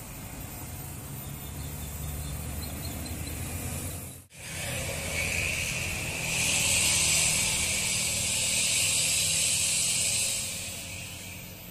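Road traffic on a steep hill: the low rumble of passing vehicle engines. The sound cuts out briefly about four seconds in. From about five seconds a loud, steady high hiss joins in and fades near the end.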